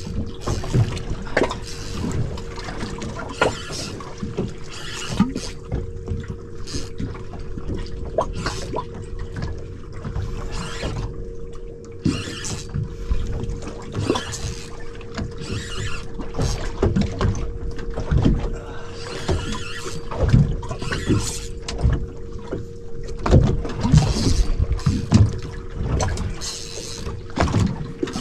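Sea water slapping and splashing against a small boat's hull, with wind gusting on the microphone over a steady low hum.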